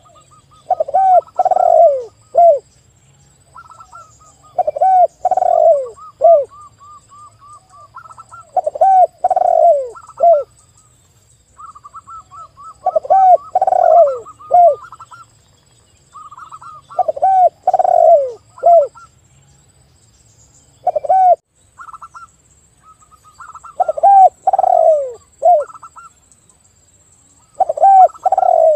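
A spotted dove cooing a loud phrase of three or four falling notes about every four seconds, while a zebra dove coos quicker series of higher, softer notes between and over the phrases.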